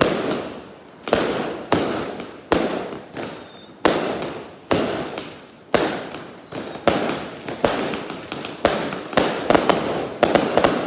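Fireworks going off in a steady run of sharp bangs, about one a second. Each bang fades away over a fraction of a second before the next.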